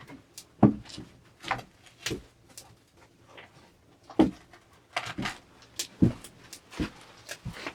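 A series of irregular knocks and short scrapes, one or two a second, the sound of wood and tools being handled.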